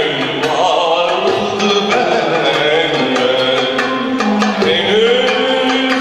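Turkish classical music ensemble playing: oud, violin and kanun carrying the melody over a steady percussion beat.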